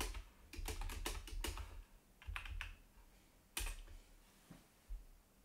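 Typing on a computer keyboard: quick runs of keystrokes for the first second and a half, a few more after a short pause, then one louder single keystroke a little after three and a half seconds, followed by a couple of faint clicks.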